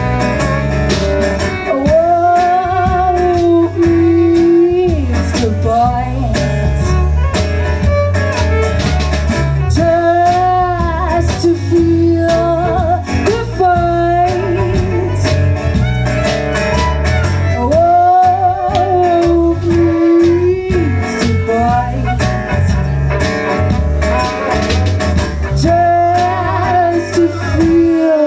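Live band playing a folk-roots song: strummed acoustic guitar, electric bass, violin and percussion, with a melody of long held notes with vibrato in repeating phrases.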